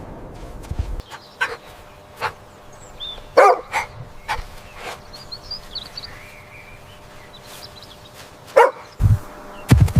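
A dog barking in short, separate barks, several spread out with gaps between them, the loudest about three and a half seconds in.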